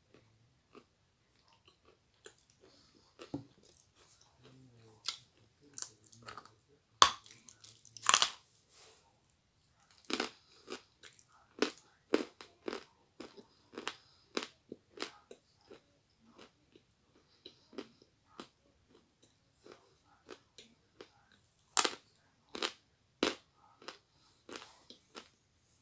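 Close-up biting and crunching of dry lumps of edible chalk, then chewing: irregular sharp crunches, the loudest bites about 7 to 8 seconds in and again around 22 seconds.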